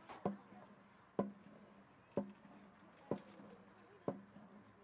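A single drum struck about once a second, five sharp beats with a short ring, keeping a steady marching tempo as the band files off the field.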